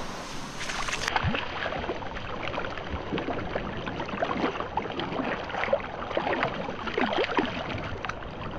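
Shallow surf washing over sand at the water's edge, bubbling and fizzing with many small pops and gurgles as the foam drains back.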